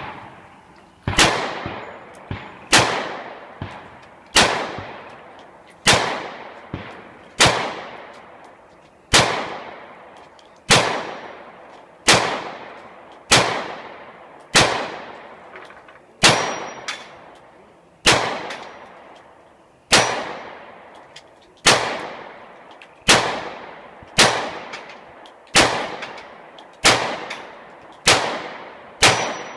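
A pistol fired in slow, steady single shots, about twenty reports roughly a second and a half apart, each with a short ringing tail.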